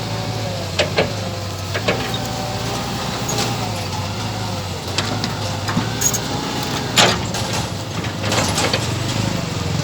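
Radio-controlled Hitachi 120 model excavator running, a steady low motor hum with a wavering whine, broken by several sharp clicks and knocks.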